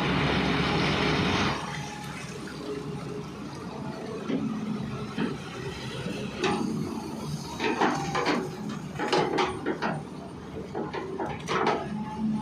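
Excavation machinery at work: a loud rushing noise for about a second and a half, then an engine running with irregular scraping and clanking.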